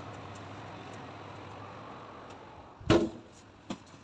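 A steady low hum, then about three seconds in a single loud thump of an oven door shutting, followed by a lighter click.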